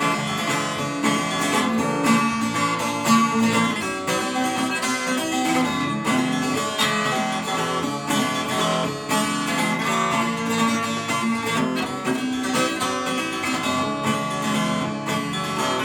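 Acoustic guitar strumming chords, an instrumental passage between sung verses.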